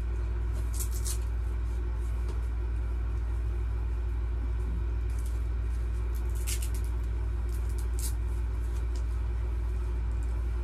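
A steady low rumble fills the small room throughout, with a few brief rustles and clicks of laptop packaging and accessories being handled, once near the start and several times in the second half.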